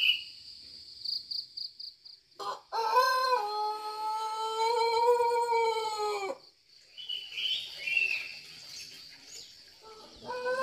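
A rooster crowing once, a long drawn-out call of about four seconds that rises, holds and drops away at the end, with another crow beginning near the end. Insects trill steadily behind it, and small birds chirp after the first crow.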